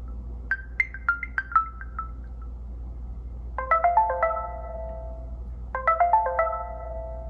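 Built-in Windows Phone 8 ringtone on a Nokia Lumia 1520, played through the phone's loudspeaker: a quick falling run of short plucked, marimba-like notes, then a pause, then a different chiming phrase of held notes that repeats about every two seconds.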